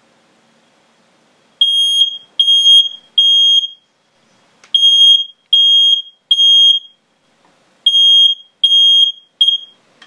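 Smoke alarm set off by e-cigarette vapour, sounding loud, high-pitched beeps in groups of three with a short pause between groups. There are three groups, and the very last beep is cut short near the end.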